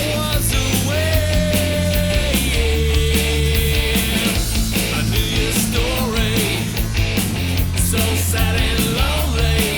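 Background rock music with drums, bass and a gliding lead guitar line.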